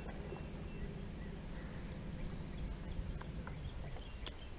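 Low steady hum of a boat's electric trolling motor that stops about three and a half seconds in, with a faint high bird call and a couple of light clicks near the end.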